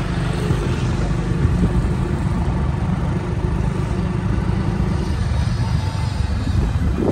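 Tractor engine running steadily at low revs as the tractor drives past close by: a continuous low rumble.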